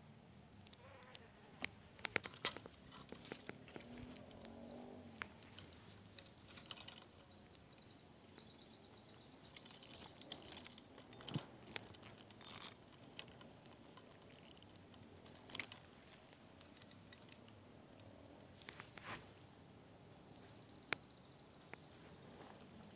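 Faint, irregular clicks and small rattles of fishing tackle being handled, with bunches of them a couple of seconds in and again around the middle.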